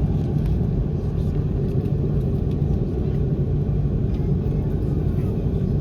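Steady cabin rumble inside an Airbus A330-300, its Rolls-Royce Trent 700 engines running at a constant setting with a low, even hum.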